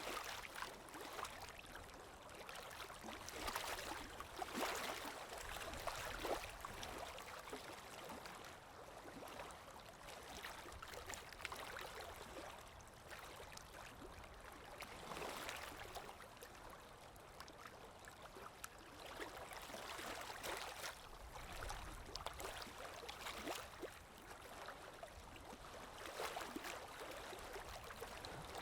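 Sea waves washing in a steady rush of surf that swells and eases every few seconds.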